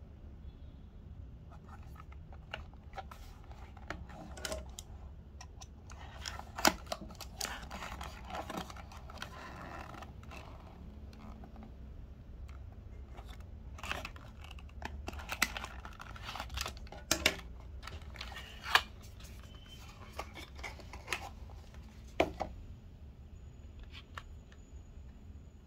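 Handling a small cardboard box and a clear plastic blister tray holding a 1:64 diecast model car: scattered rustling, scraping and crinkling with a few sharp clicks, over a low steady hum.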